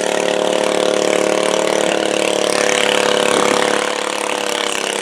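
Tractor engines idling steadily: a modified garden tractor's engine and a larger farm tractor's engine behind it.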